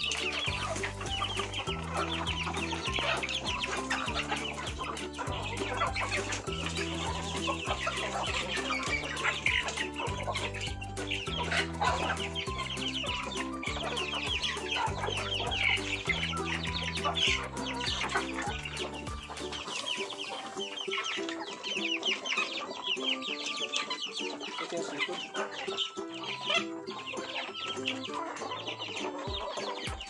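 A flock of chickens clucking continuously, over background music whose bass line drops out about two-thirds of the way through.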